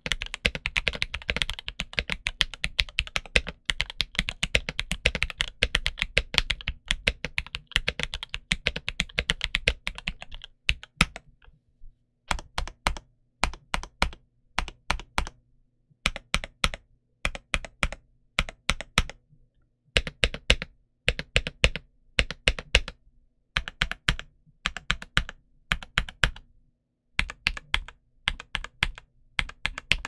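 Drop CSTM65 mechanical keyboard with Gateron Milky Yellow Pro linear switches and Cherry-profile doubleshot ABS keycaps being typed on. Fast, continuous typing for about the first ten seconds, then single keys pressed in short runs of a few strokes with pauses between.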